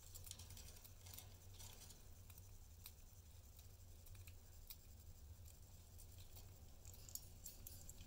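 Faint, scattered clicks of a budgie cracking and husking seeds with its beak at a seed cup, bunched in the first two seconds and again near the end, over a steady low hum.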